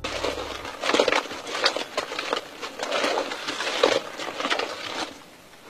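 Palm sap boiled down to thick jaggery syrup in an open pan, bubbling and popping in irregular crackly bursts as a stick stirs through it. The syrup has reached the thick stage for setting into karupatti.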